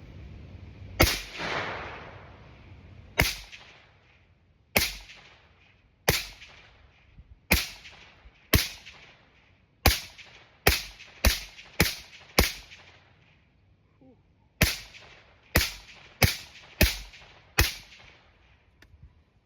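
5.56 AR-15 rifle fired through a Dead Air Nomad 30 suppressor: sixteen sharp shots, first at a steady pace about one to one and a half seconds apart, then quicker runs of shots about half a second apart, with a short pause between the runs.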